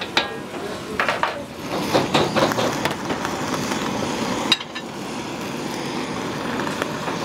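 Metal clatter of cookware and utensils in a restaurant kitchen: a run of sharp clanks in the first few seconds and a single sharp knock about four and a half seconds in, over a steady rushing noise.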